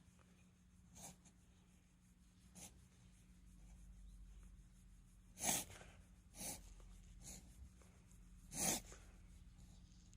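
A miniature dachshund's short nasal sneezes and snorts, several scattered bursts, the two loudest about five and a half and eight and a half seconds in.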